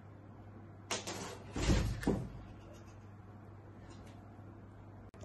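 A light knock about a second in, then two heavy, dull thumps about half a second apart, as a kitten leaps and lands during play with a wand toy.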